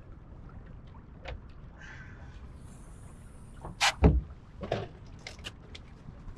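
Fiberglass bow hatch on a small skiff being opened: light knocks and rattles of the lid and its latches, with one heavy thump a little after four seconds in, over a faint steady background of water and wind.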